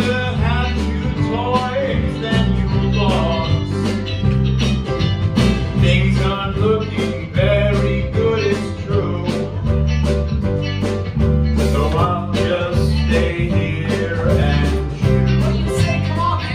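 A man singing a song with a live band: a steady bass line and a regular drum beat under his voice.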